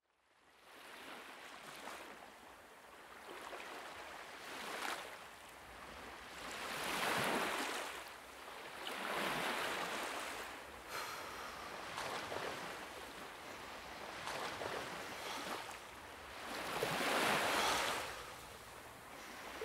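A soft rushing wash, like surf on a shore, that swells and draws back every few seconds, loudest about seven seconds in and again near the end.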